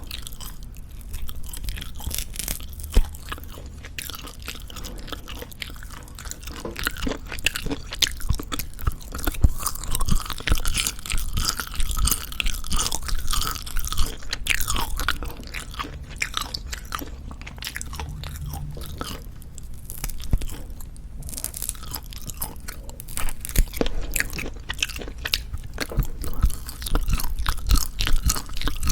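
Close-miked chewing of Jeju black pork jerky: wet, sticky mouth sounds with many small irregular crackles as the dried meat is bitten and worked between the teeth.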